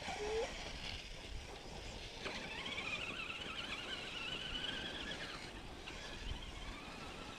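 Electric RC truck's motor and drivetrain whining as it runs up a sand dune, the pitch rising and wavering for about three seconds before it cuts off, over a steady wind noise.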